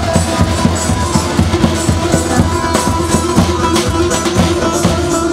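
Instrumental Kurdish wedding dance music from a band: a quick, steady drum beat under held keyboard tones, with no singing.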